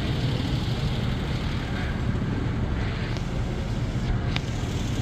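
A vehicle engine idling: a steady low hum, with a faint click or two later on.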